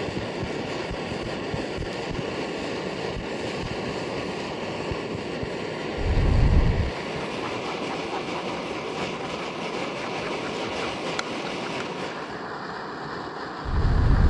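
Outdoor wind blowing steadily, with two gusts buffeting the microphone in deep rumbles, about six seconds in and again near the end.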